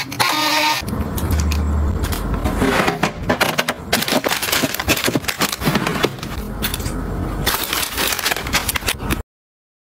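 Dense crackling and clicking of items and packaging being handled, cutting off abruptly a little over nine seconds in.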